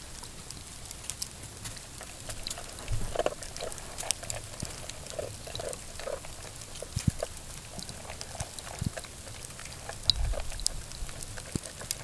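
Scattered light ticks and drips in freezing-rain weather, with a few short farm-animal calls about three to six seconds in and a low thud near the end.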